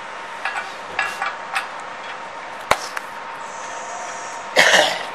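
Steel nuts and bolts clinking against a steel machine frame as they are fitted by hand to a bearing housing, several small metallic clicks and one sharp click, then a loud short burst near the end.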